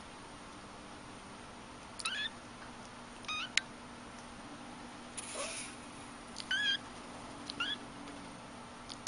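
Cat meowing four times, short high-pitched meows a second or more apart, with a brief burst of hissy noise in the middle.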